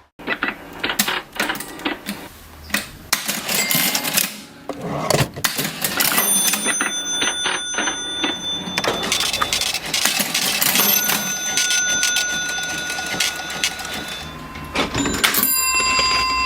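Vintage mechanical cash register being worked: keys and levers clacking and clattering, with a bell ringing out and sustaining three times, about six seconds in, around eleven seconds, and near the end.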